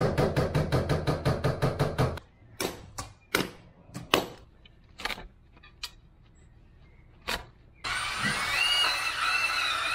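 A rapid run of knocks, about five a second, over a low hum for the first two seconds; then a hammer striking a chisel to break out mortar under patio slabs, six sharp blows spaced out; then a cordless drill running near the end, its whine rising and falling.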